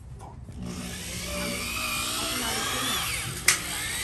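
Corded electric car polisher with a foam pad running against a painted panel, its motor whine wavering in pitch as it works. A sharp click about three and a half seconds in.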